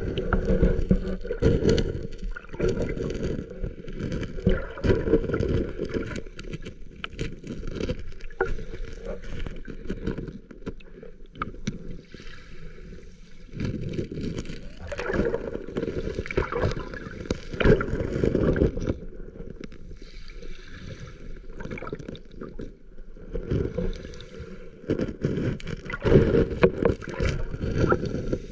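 Shallow lake water surging and sloshing over a pebble bed, heard through an underwater camera: muffled and low, swelling and fading in waves every several seconds, with scattered small clicks.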